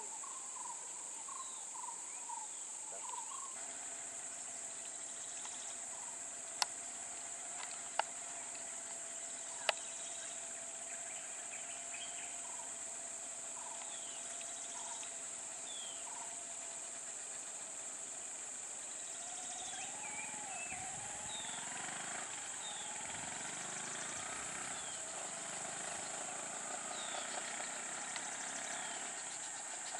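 Steady high-pitched drone of insects with scattered short bird chirps. Three sharp clicks come between about six and ten seconds in, and from about twenty seconds in a vehicle engine runs, rising and falling in pitch.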